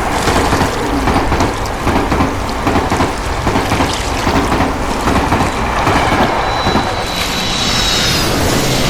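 A train passing close by: a loud, steady rumble and clatter, with a thin high tone joining briefly near the end.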